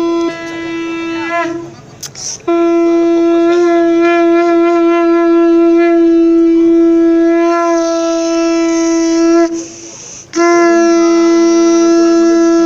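Conch shell (shankha) blown in long, steady blasts: one ending about a second and a half in, a long one of about seven seconds, and another starting near the end, joined by a second, lower tone.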